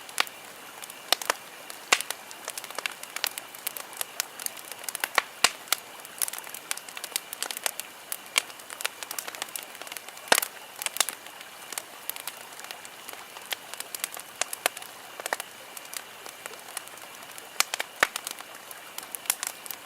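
Campfire crackling: irregular sharp pops and snaps over a steady hiss, with the loudest pop about halfway through.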